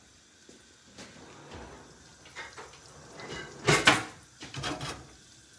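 Kitchen handling knocks, the loudest a sharp clatter nearly four seconds in and a smaller one about a second later, among a few faint taps.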